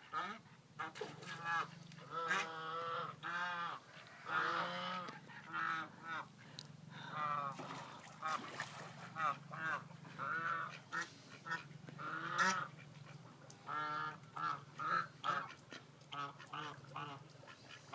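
Geese and ducks calling: a run of short honks and quacks, one after another, without a break.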